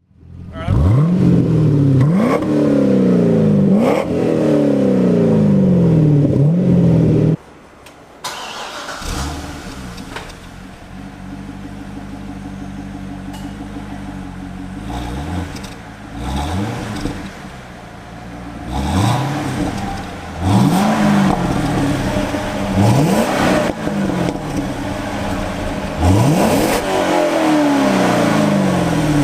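C6 Corvette V8 exhaust as the engine is revved again and again, each rev climbing and falling back. It is loud for the first seven seconds, then after a sudden drop it settles to a quieter idle broken by short blips of the throttle.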